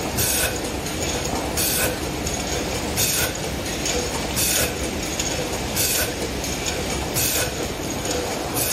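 Aluminium aerosol can necking machine running: a steady mechanical clatter, with a short hiss repeating about every second and a half.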